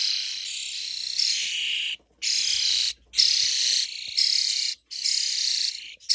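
Young starlings giving harsh, raspy begging calls while being hand-fed worms: a loud chorus of hissing rasps in long bursts broken by short pauses.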